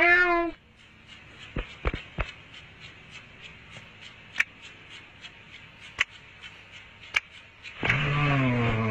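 A cartoon cat's meow at the very start, then a few soft thumps and sparse sharp clicks as the cat creeps over the sleeping man. Near the end comes a louder, low-pitched groan with falling pitch from the man.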